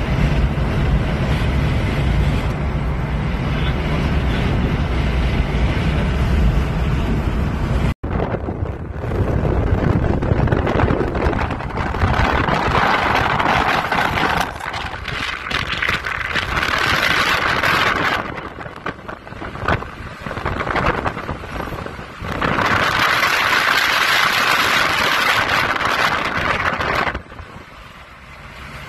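A car driving, heard from inside the cabin: a steady low road-and-engine rumble. After a sudden break about eight seconds in, loud rushing wind noise comes in long surges that rise and fall, dropping away near the end.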